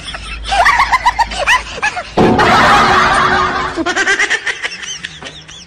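Laughter: runs of quick, rapidly repeated snickering. About two seconds in, a loud burst of noise lasts about a second and a half before the snickering returns.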